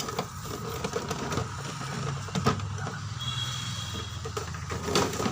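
Scattered clicks and knocks from the plastic housing of an inkjet printer being handled while its snap-fit locks are worked loose, over a steady low hum.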